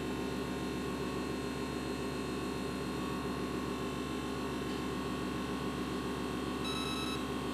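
Steady machine hum of the running particle-counter filter-test rig, its sampling pump drawing air through the scan probe during the upstream aerosol sample. Near the end a short electronic beep sounds from the instrument.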